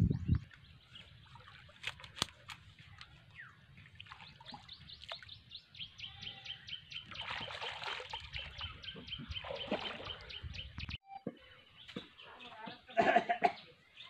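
Shallow water splashing as a stick is worked in it at the water's edge, with birds chirping steadily throughout. A short, louder call near the end.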